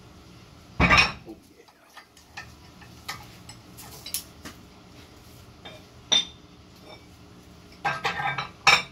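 Metal weight plates clanking and clinking as they are handled on a grip-training setup: one heavy clank about a second in, a few single clinks, then a quick run of clanks near the end.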